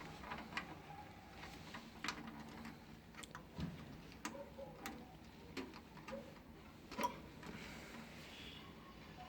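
Scattered light clicks and taps at an irregular pace, the sharpest about seven seconds in: small objects or plastic parts being handled.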